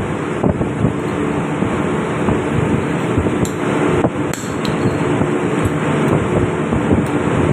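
Steady, loud drone of a ship's engine-room machinery, with even low tones running through it. A few sharp metal taps and clicks come from hand tools on the fuel injection pump a little past halfway.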